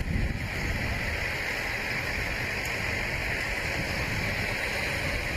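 Steady rushing noise over a low rumble, a fire engine's engine running close by.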